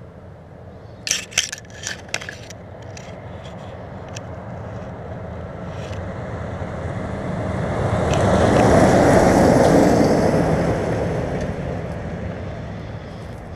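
A vehicle driving past on a gravel road, growing louder over several seconds to its loudest in the second half and then fading away. A few sharp clicks and rustles close by about a second in.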